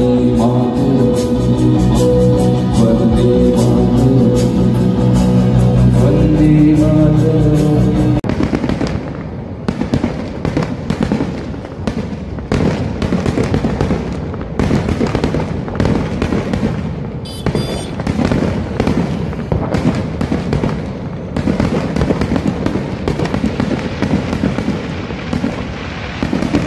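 Band music from an outdoor stage for about eight seconds, then cut to a fireworks display in the sky: a long, irregular run of bangs from bursting shells.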